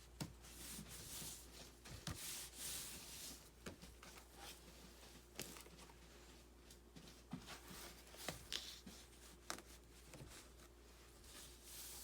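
Faint handling noise: scattered light clicks and brief rustles over a steady low hum.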